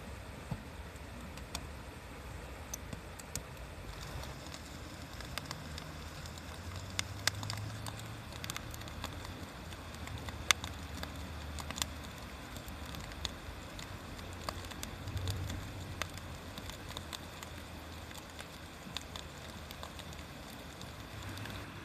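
Wood fire crackling, with irregular sharp pops, the loudest about ten seconds in, over a low background rumble.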